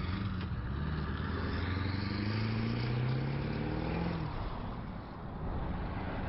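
Diesel pickup truck accelerating hard and rolling coal. The engine note climbs for about three seconds, then eases off near the end.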